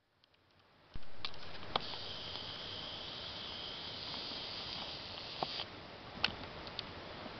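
Riverside outdoor ambience that cuts in suddenly about a second in: an even hiss with an insect's steady high buzz from about two seconds in that stops abruptly past halfway, and a few faint clicks.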